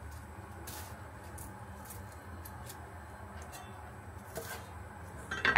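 Kitchen knife slicing a Chinese scallion into fine shreds on a cutting board: soft, irregular crisp strokes over a low steady hum, with a single much louder knock or clatter near the end.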